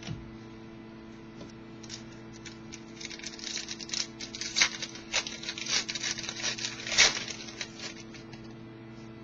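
Trading cards and their pack packaging being handled, a run of crinkles, rustles and small clicks through the middle, over a steady electrical hum.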